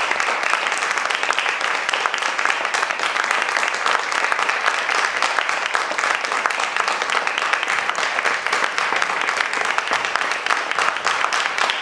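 Sustained audience applause: many hands clapping at a steady, even level.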